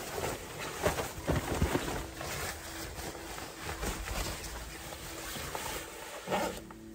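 Rustling of heavy winter clothing and shuffling movement as a person dresses, with small knocks and brushes. A faint steady hum comes in about two seconds in and drops slightly lower near the end.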